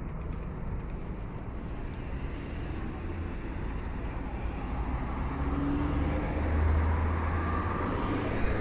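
City street traffic: a steady hum of engines and tyres, with one vehicle's engine hum growing louder and nearer from about five seconds in.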